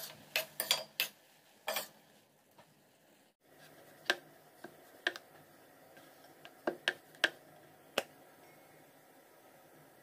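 A steel spoon clinking and scraping against a stainless steel kadai as chopped ridge gourd and carrot are stirred, several sharp clinks in the first two seconds. After a break, scattered sharp taps and clicks while chapati dough is pressed out on a wooden board.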